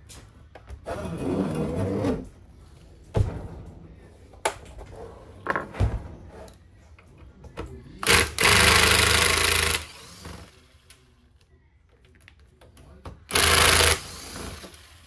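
Cordless impact driver hammering in two bursts, a longer one of about a second and a half and a short one near the end, backing out screws from a rusty sheet-metal cover. A few short knocks of handling come between.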